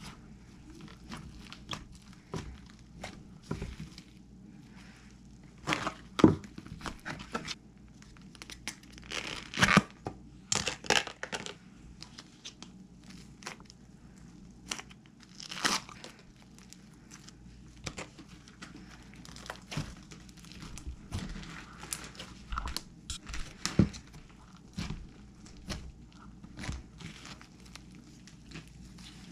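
Handmade slime being squeezed and stretched by hand, giving irregular pops and crackles, a few much louder than the rest.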